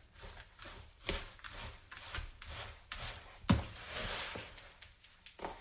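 Oat cookie mixture being stirred in a glass bowl: rubbing and scraping, with a few sharp knocks, the loudest about three and a half seconds in.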